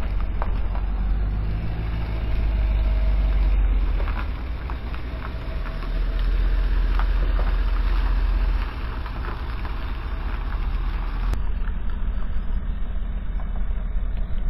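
Pickup truck engine running as it tows a trailer carrying a mini excavator, the low engine note swelling louder twice as it pulls away.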